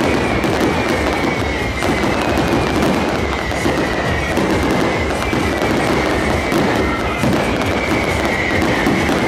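Fireworks display with many aerial shells bursting in quick succession: a dense, unbroken barrage of overlapping bangs and crackle.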